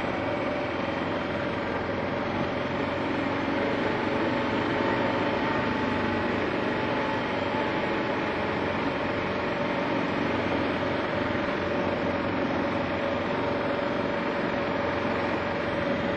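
2009 Kawasaki KLR 650's single-cylinder engine running steadily under way, mixed with wind and road noise, at an even level.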